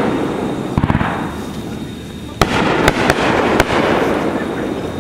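Fireworks going off: a quick crackling cluster about a second in, then three sharp bangs about half a second apart near the middle, over a rolling rumble of bursts and echoes.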